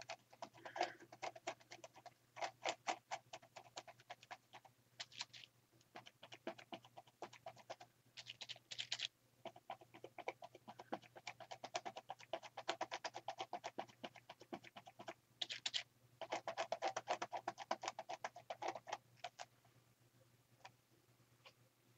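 Faint, quick tapping: paint being dabbed through a stencil onto a paper journal page, in runs of rapid taps with short pauses, stopping about two seconds before the end.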